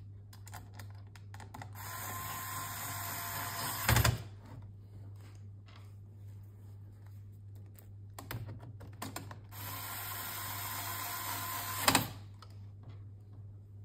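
Electric screwdriver running twice, each run lasting about two seconds and ending in a sharp click as a screw is driven home. Small handling ticks come between the runs.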